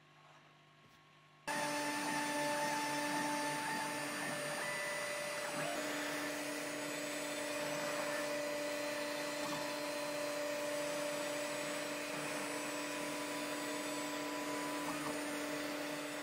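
CNC router milling wooden drawer fronts: a steady motor whine mixed with cutting noise that starts suddenly about a second and a half in and runs without pause.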